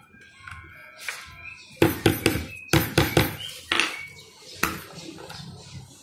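Hammer tapping a bag lock's metal prongs flat over slotted plastic backing plates on a work board: about ten sharp taps in quick runs, starting about two seconds in.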